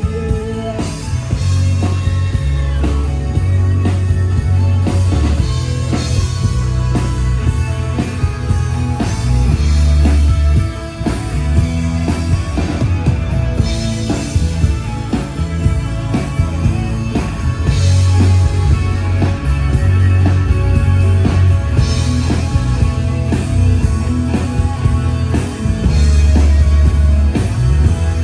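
Live rock band playing an instrumental passage: electric guitar over a heavy bass line and a steady drum-kit beat, with no singing.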